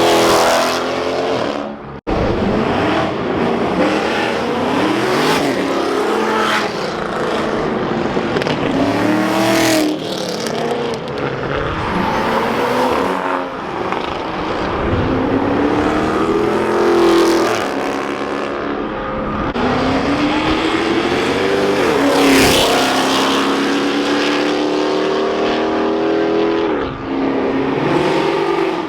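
Cars accelerating hard one after another as they leave, engines revving up through the gears with repeated climbs in pitch and drops at the shifts.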